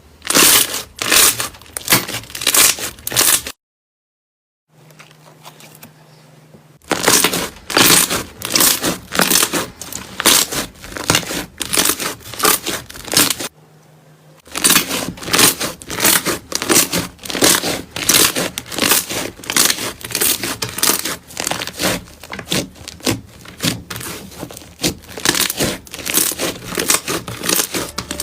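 Slime being squeezed and poked, giving rapid crackling and popping clicks in several runs broken by two short pauses.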